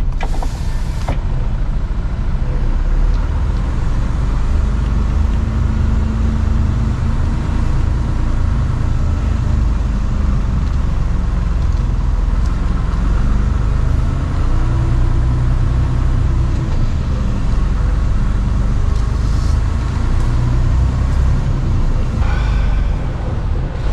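Mercedes-Benz Actros truck's diesel engine and road noise heard inside the cab while driving at low speed, the engine note slowly rising and falling. A few brief hisses come through near the start and again near the end.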